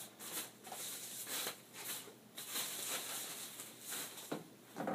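Plastic protective wrapping rustling and crinkling in irregular bursts as a soundbar is pulled out of it, ending on a louder knock.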